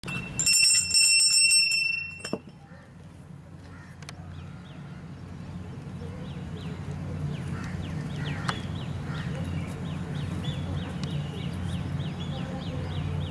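A hand bell rung in quick strokes for about two seconds: the dressage judge's signal for the rider to begin the test. After it, a low steady hum and a bird calling in short chirps, repeated about three times a second.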